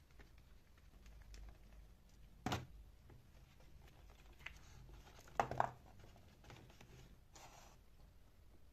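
Faint handling noises in a small room: a sharp knock about two and a half seconds in, a quick cluster of louder clicks about halfway through, and a short rustle near the end.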